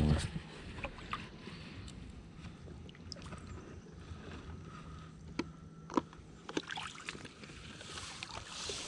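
Shallow water sloshing as someone wades and lifts a plastic milk-jug crawfish trap through it, with a few short knocks in the middle.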